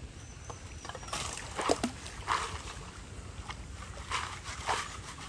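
Water splashing and sloshing around people wading waist-deep in a river as they feel for clams, with several short splashes over a steady low rumble.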